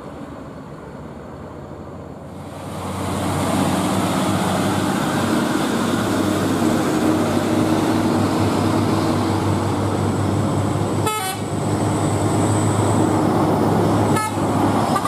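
Heavy Hino truck's diesel engine pulling a loaded lowbed trailer, growing much louder about two and a half seconds in as the truck draws close. Two short horn toots come about three seconds apart near the end.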